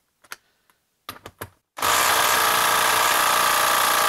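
A few light clicks as the socket is seated, then about two seconds in a Craftsman brushless cordless impact driver starts hammering steadily at full speed, trying to back out a bolt.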